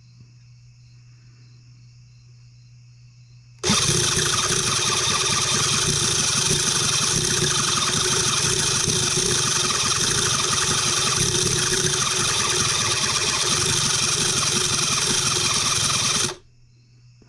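Electric starter motor cranking a Cison L4-175 miniature four-cylinder flathead engine: a loud, steady whir that starts suddenly about three and a half seconds in and stops suddenly some thirteen seconds later, while the engine never catches. The starter has been run long enough to get warm, and the cause of the no-start was later traced to spark grounding out down the rubber plug boots.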